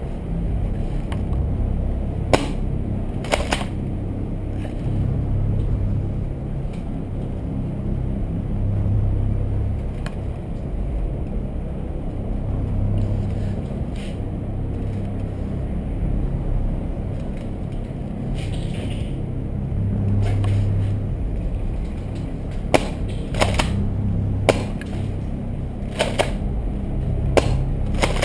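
Sharp cracks of an airsoft replica firing, a couple early on and then a run of several shots near the end, over a steady low rumble from the microphone.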